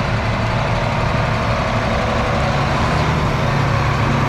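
Heavy farm vehicle engine running steadily, its pitch stepping up slightly about halfway through.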